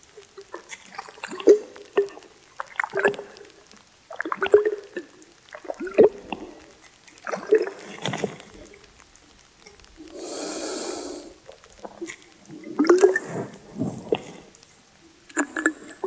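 A man making short, breathy blowing and snorting sounds with gurgles, one after another, and one longer hissing blow about ten seconds in: a traditional healer breathing and blowing over medicine from a bottle in a ritual.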